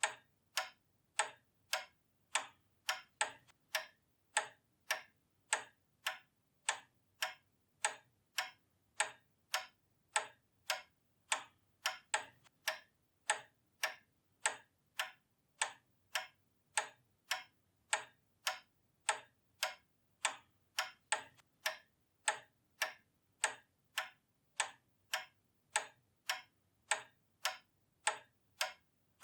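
Pendulum clock ticking steadily, with evenly spaced, sharp ticks a little under two a second.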